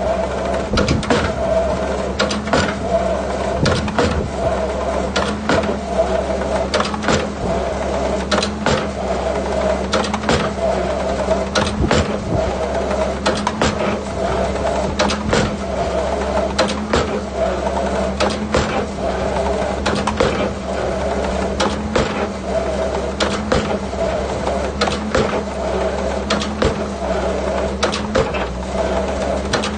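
Excavator running steadily at work, its engine holding a constant drone, with frequent irregular metallic clanks and knocks on top.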